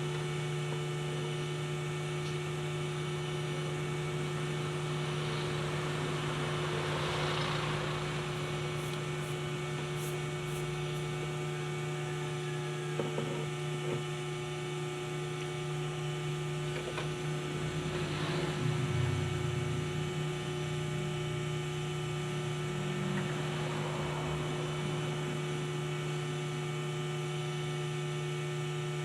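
Steady electrical hum with several fixed tones, the strongest low. A few faint swells of hiss come and go about seven, eighteen and twenty-four seconds in.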